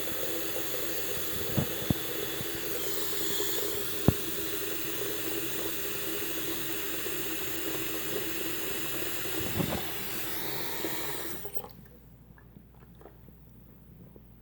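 Hot water running from a tap into a sink, flushing a clogged drain treated with baking soda and vinegar, with a few sharp knocks. The tap is shut off about three-quarters of the way through, leaving only faint crackles.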